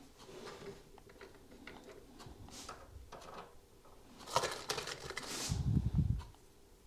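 Small clicks and light rustling of brass cartridge cases and bullets being handled at a turret reloading press, with a louder rustle about four seconds in and a short dull thump soon after.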